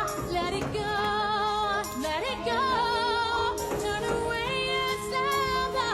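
Music: a song with a woman's singing voice over sustained accompaniment.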